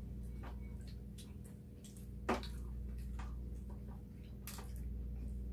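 Eating utensils, spoons and chopsticks, clicking now and then against bowls and plates at a meal table, with a sharper click a little over two seconds in, over a steady low hum.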